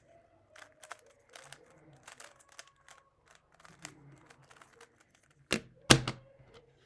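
Speed cube being turned fast: an irregular run of plastic clicks and clacks, then two loud knocks near the end.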